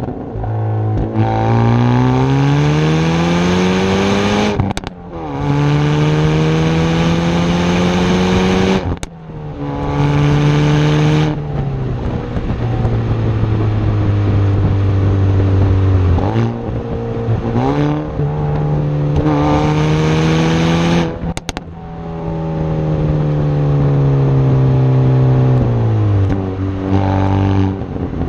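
Hyundai i30N's turbocharged 2.0-litre four-cylinder engine pulling hard in several runs, its pitch climbing under acceleration and dropping as it slows. A few sharp exhaust cracks come as the throttle is lifted.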